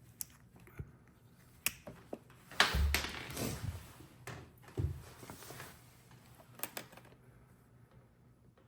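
Sharp clicks and rattles of small metal lock parts handled on a bench as a Ford door lock cylinder is taken apart, with a louder clatter and a thump about three seconds in.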